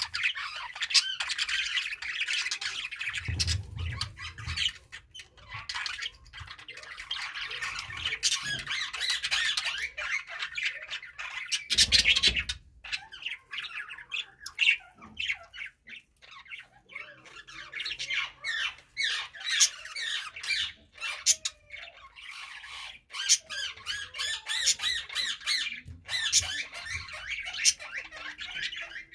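Budgerigars chattering and chirping without a break, a dense warbling flock sound, with a couple of dull thumps about four and twelve seconds in.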